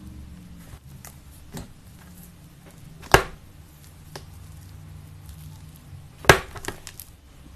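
Slime being handled: two loud, sharp slaps or snaps about three seconds apart, with small clicks and crackles between them, over a low steady hum.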